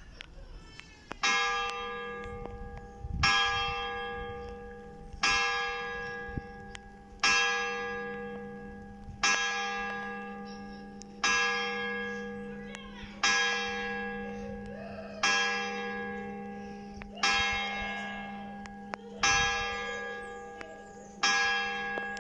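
Church bell tuned to G-sharp 3, struck (tolled, not swung) for the 11 o'clock hour: eleven strokes about two seconds apart, each ringing on and fading before the next, over the bell's steady low hum.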